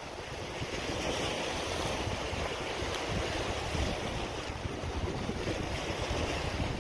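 Small waves washing and breaking against a rocky shoreline, with wind buffeting the microphone as a fluttering low rumble.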